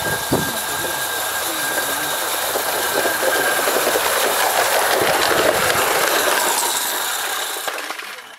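Small live-steam garden-railway locomotive approaching along the track: a steady hiss of steam with rapid fine clicking, growing louder to a peak about two-thirds of the way through, then fading out near the end.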